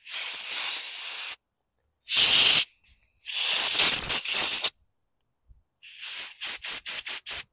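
Compressed-air blow gun blasting air through the passages of a small-engine carburetor during cleaning. Three longer hissing blasts, then a quick run of about six short bursts near the end.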